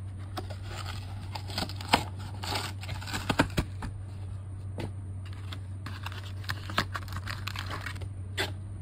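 Action figure's clear plastic blister packaging being pried and torn open by hand, crinkling and crackling with scattered sharp snaps.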